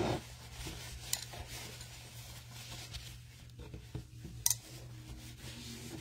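Faint rubbing and rustling as a paintbrush is dabbed and wiped on a paper towel, with a few small sharp clicks, the sharpest about four and a half seconds in, over a steady low hum.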